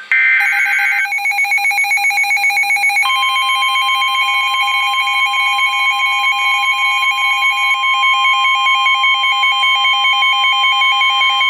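Emergency alert tones for a severe thunderstorm warning. The first second is the buzzy tail of a SAME digital data header. After that an electronic alarm beeps in rapid pulses, and from about three seconds in the steady 1050 Hz weather radio warning tone sounds over the beeping.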